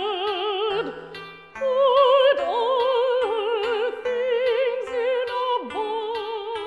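Operatic solo singing: a voice with wide vibrato sings long held notes over instrumental accompaniment, with a short lull a little over a second in.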